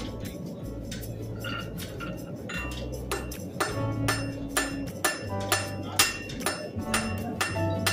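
Blacksmith's hammer blows on an anvil, each strike ringing with a clear metallic tone. The strikes are sparse at first and come faster from about three seconds in, over a low steady hum.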